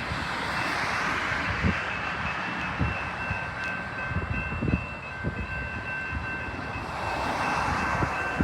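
Metra commuter train running past, with irregular low knocks and swells of rumbling noise, under two steady high ringing tones.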